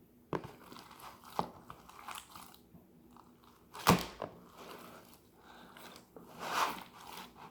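Slime mixed with Play-Doh being squished in the hands: sticky, wet clicks and crackles, the loudest about four seconds in, and a longer squelch near the end.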